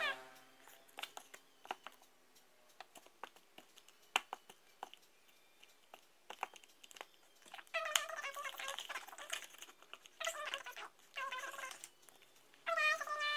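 Small wet clicks and pops of slime being handled, then, from about eight seconds in, four high wavering cries, the first about two seconds long and the rest shorter.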